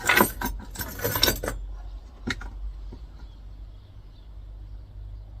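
Small pieces of metal scrap clinking and clattering together in a quick flurry over the first second and a half, with one more clink about two seconds in.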